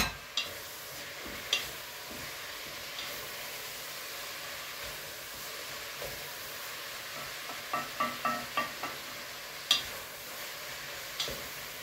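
Food sizzling steadily in hot oil in a frying pan. Single taps early on, then a quick run of light clinks and knocks of a utensil against cookware around eight seconds in, and two more sharp taps near the end.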